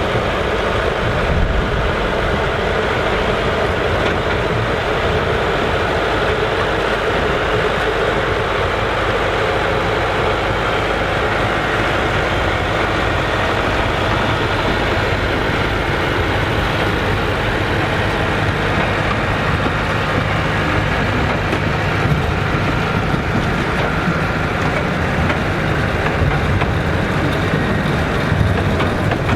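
Massey Ferguson 3070 tractor's diesel engine running steadily.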